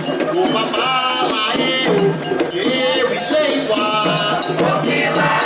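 A chorus of women's voices singing a Candomblé chant, over a struck iron bell (agogô) keeping the rhythm.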